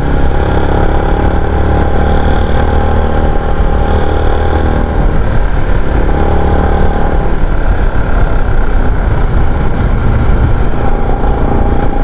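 Motorcycle engine running steadily while riding, with a dense rush of road and wind noise.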